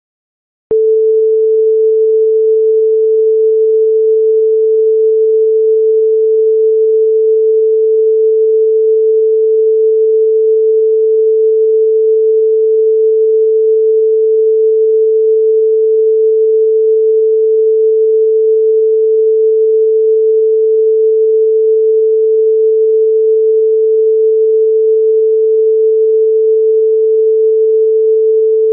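Audio line-up tone: one loud, steady pure tone held without change, played with colour bars at the head of a TV programme master for setting levels. It switches on with a faint click about a second in.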